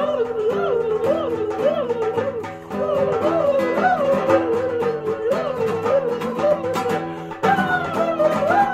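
Background music: a melody that swoops up and down in repeated phrases over steady held chords, stepping up a little louder with a new phrase shortly before the end.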